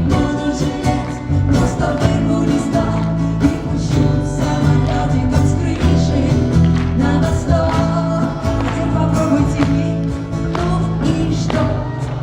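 Live pop band playing a song, with a steady drum beat and prominent bass under a woman's singing.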